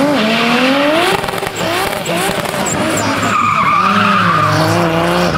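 A car being drifted: its engine revs hard, rising sharply in pitch at the start, then dropping and revving up and down, while the rear tyres squeal as they spin and slide, loudest about three to four seconds in.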